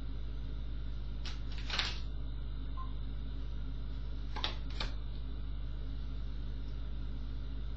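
Steady low electrical hum, with four short soft swishes of tarot cards being handled and laid down: two in the first two seconds and a close pair about four and a half seconds in.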